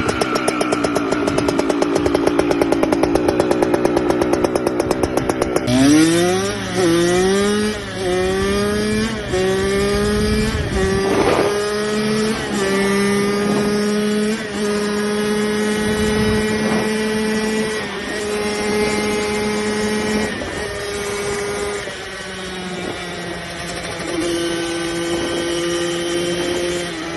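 Kawasaki KX65 two-stroke dirt bike engine at high revs with a rapid buzzing pulse. About six seconds in, the sound changes abruptly and the engine pitch climbs and drops several times as it shifts up through the gears, then holds a steady pitch before easing lower.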